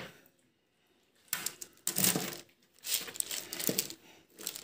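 Hands laying a spiced raw chicken onto a parchment-lined metal baking tray: a run of short rustling and knocking bursts from the parchment crinkling and the tray being handled, starting about a second in.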